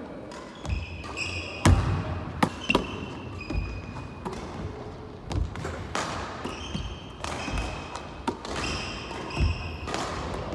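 Basketball thuds on the floor and backboard roughly once a second as a player works through a Mikan drill of alternating layups under the rim. Short high sneaker squeaks from the court floor come between the thuds.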